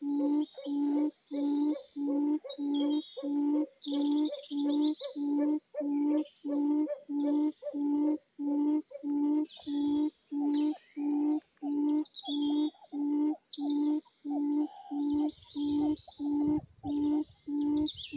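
A quail's low, hollow cooing note repeated steadily about twice a second, the kind of call used to lure quail to a trap. Small birds chirp and whistle higher up, on and off.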